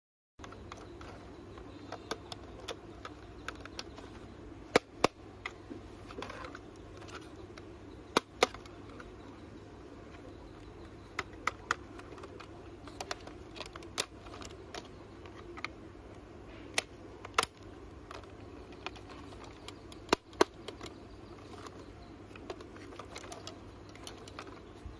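Hard plastic clicks and taps at irregular intervals as a toy school bus is handled and its body parts are turned and pressed, with a few sharper clicks standing out. A steady low background noise runs underneath.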